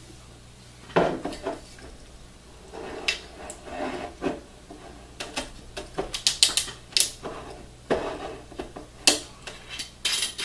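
A glass bottle of Fireball cinnamon whisky being handled and its screw cap twisted open. There is a string of small clicks, taps and rustles, busiest about five to seven seconds in.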